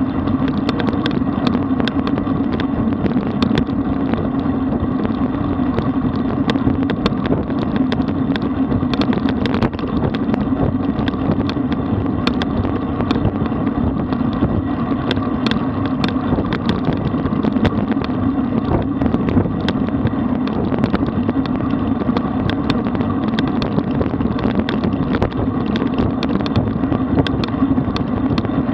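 Steady wind rush on the microphone and road rumble from a road bike riding at speed, with many small clicks and rattles.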